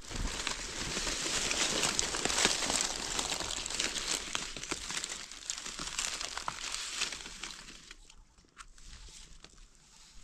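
Dry leaf litter rustling and crackling as gloved hands brush through it and dig in the ground, a dense run of small crackles and snaps that dies down about eight seconds in.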